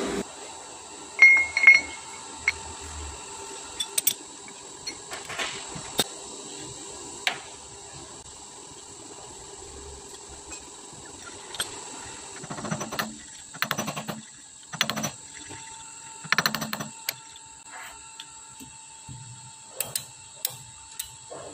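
Scattered metal clinks and knocks as a steel clutch plate is handled and clamped in a lathe's jaw chuck, with a cluster of heavier knocks in the second half. A faint steady high whine runs underneath.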